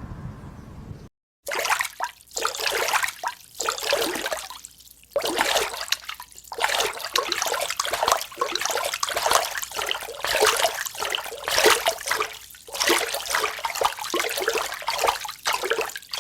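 Water splashing and sloshing in loud, irregular rushes with short pauses between them, starting after a brief silent gap about a second in.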